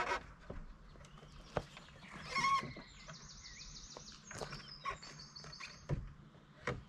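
Scattered knocks and rattles of straps and a roof rack as a canoe is tied down on a car roof, with a brief pitched squeal about two and a half seconds in. High trilling bird song runs through the middle.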